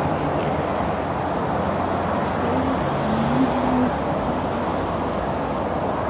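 Steady road traffic noise, an even rush of passing vehicles with no single one standing out.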